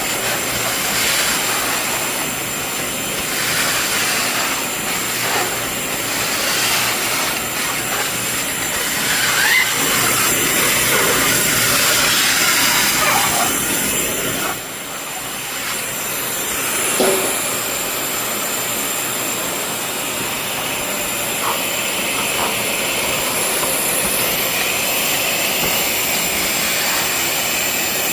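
Industrial coolant sludge vacuum cleaner running, a steady high motor whine over a rush of air, as its wide floor nozzle sucks up water from the floor with short gurgling slurps. The suction drops briefly about halfway through.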